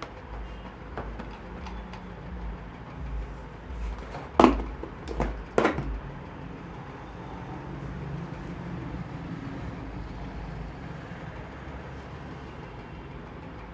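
Three sharp slaps of a barber's hands during a face massage, about half a second apart, over a steady low hum.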